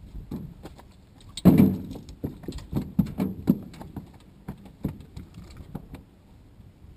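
A fish dropping onto a boat deck with a heavy thud about a second and a half in, then flopping and knocking against the deck in a run of irregular thumps for several seconds.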